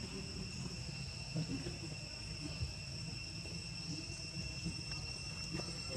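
Outdoor insect chorus: a steady, even high-pitched drone throughout, with a low rumble underneath.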